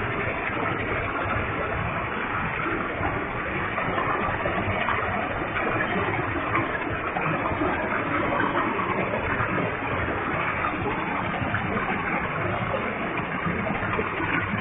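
Waterfall with a large volume of water falling, a steady, even rush of water.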